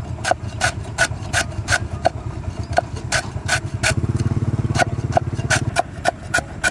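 Cleaver chopping lemongrass on a round wooden chopping board: sharp even knocks about three a second, pausing briefly twice. A low hum runs underneath, louder for a couple of seconds in the middle.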